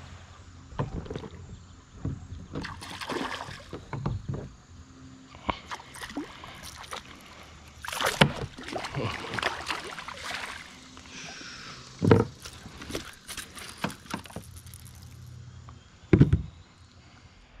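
Splashing as a hooked smallmouth bass thrashes at the surface beside a plastic kayak, with water sloshing and scattered knocks and bumps on the hull. The loudest sharp knocks come about two-thirds of the way through and near the end.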